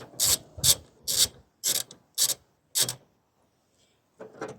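Hand ratchet clicking in short swings, about two a second, as a door hinge bolt on a Vauxhall Movano van is undone. The swings stop after about three seconds, and one more short burst follows near the end.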